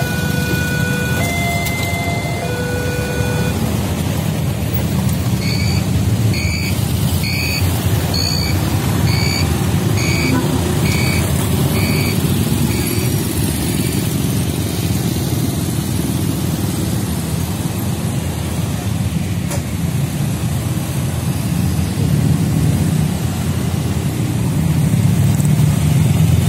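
Road traffic of motorcycles and cars at a busy rail level crossing, engines running and moving off. A two-tone warning alarm alternates between a lower and a higher pitch for the first few seconds and then stops, and about ten short high beeps, roughly one every three-quarters of a second, sound in the middle.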